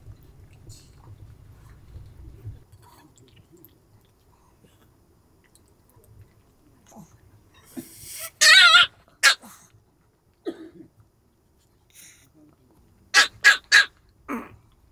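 Small Pomeranian barking in annoyance at the other dog eating: one loud, wavering bark about eight seconds in, a couple of shorter ones after it, then three quick sharp barks and a lower one near the end.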